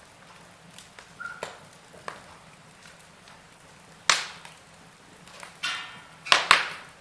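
Wood fire in a fireplace crackling, with scattered sharp pops: a loud one about four seconds in, a short hiss, then two loud pops close together near the end.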